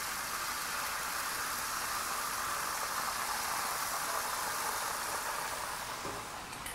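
Omelette egg mixture sizzling on a hot griddle plate over a grill: a steady hiss that eases off slightly near the end.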